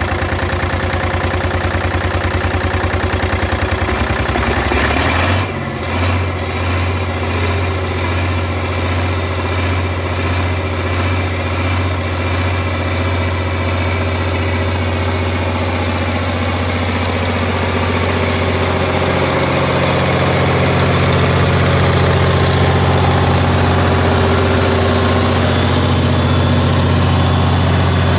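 Large diesel engine running just after a cold start, a steady deep running note. About five seconds in the note shifts abruptly, and it grows louder in the last third.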